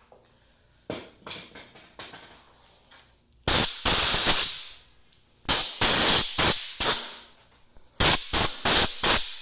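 Compressed-air blow gun fired in repeated short blasts of hiss, blowing metal chips out of a drilled padlock core. The blasts come in three groups: a long one, then a quick run of about five, then four more near the end. A few light knocks come before the first blast.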